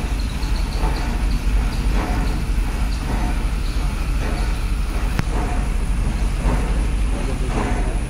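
Steady low rumble of diesel construction machinery running at a road works site, with one sharp knock about five seconds in.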